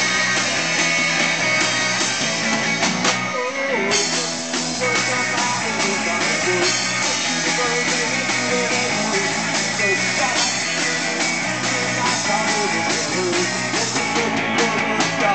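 Live rock band playing loud: electric guitar and drum kit, with a brief drop in the cymbals and highs a few seconds in.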